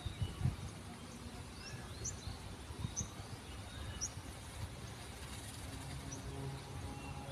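Small birds chirping, short high calls about once a second, over outdoor background noise with a low rumble. A low steady hum comes in near the end.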